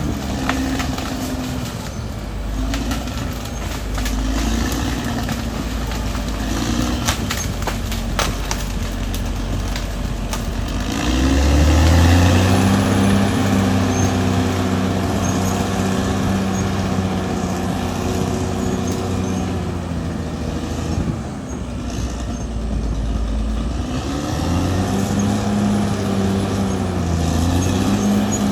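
Caterpillar D6R XL bulldozer's diesel engine working, with scattered sharp knocks and clanks in the first third. About a third of the way in the engine revs up and holds high as if under load, dips briefly about three-quarters through, then rises again.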